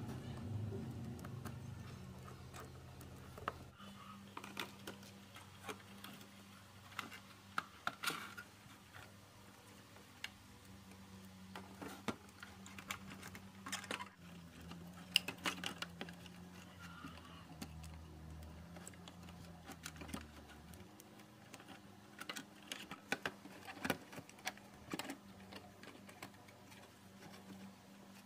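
Light, irregular clicks and taps of small hard objects being handled, over a faint low hum.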